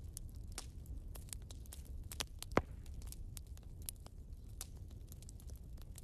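Wood logs burning in a fireplace, crackling with irregular small snaps and one louder pop about two and a half seconds in, over a low steady rumble.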